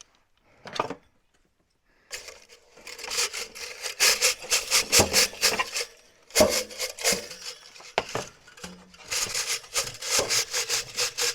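Chimney brush scraping up and down inside a wood-stove chimney pipe in rapid rasping strokes, scouring off heavy creosote build-up. The scrubbing starts about two seconds in and pauses briefly midway.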